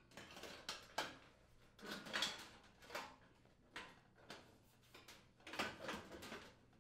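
Sheet-metal rear access panel of a gas range being fitted back into place: a string of faint scrapes and knocks as the panel slides and bumps against the cabinet, the longest about two seconds in and again near the end.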